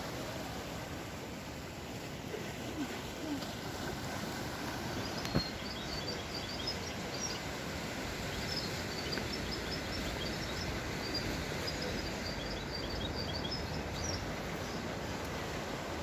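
Steady wash of ocean surf breaking on the shore, with wind. A small bird chirps in quick high notes from about five seconds in until near the end, and a single sharp click sounds about five seconds in.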